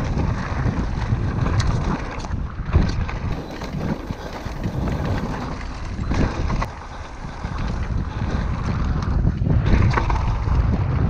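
Wind buffeting the microphone and tyres rolling over a dirt trail at speed, with frequent short clatters and knocks as the e-mountain bike rides over bumps.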